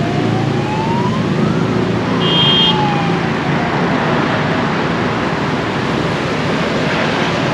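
Steady road-traffic noise from a busy street. Partway through, a whine rises over about a second and a half and then falls away, and a short high-pitched beep sounds about two seconds in.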